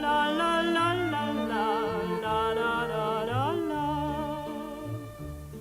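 A woman's voice singing a wordless melody with vibrato and long slides in pitch, over a low plucked bass accompaniment, in the interlude between two verses of a song.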